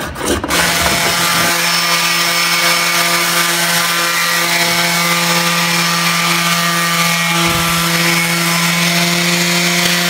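Electric random orbital sander running steadily against a wooden slab: a constant motor hum under a sanding hiss. It starts about half a second in, right after a brief scraping stroke of a hand plane.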